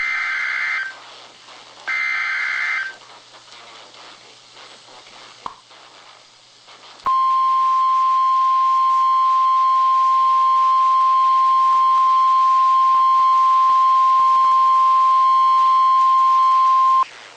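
NOAA Weather Radio emergency alert: two roughly one-second bursts of the SAME digital header, a buzzy two-pitch warble, then a few seconds of faint radio hiss. After that the steady 1050 Hz warning alarm tone sounds for about ten seconds and cuts off near the end, signalling that a weather alert broadcast follows.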